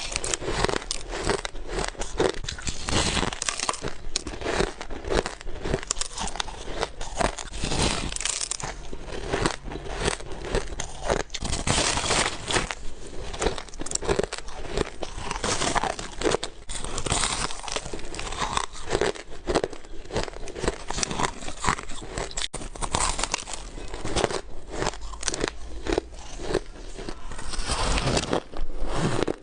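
Ice being bitten and chewed close to the microphone: a steady run of crisp crunches and crackles, one bite after another.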